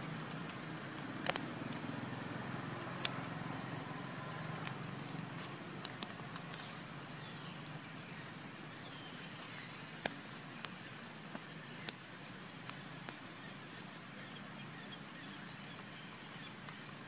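Steady low outdoor rumble, like distant traffic, with scattered sharp clicks and crackles of dry leaf litter as the macaques shift and the infant walks across the leaves.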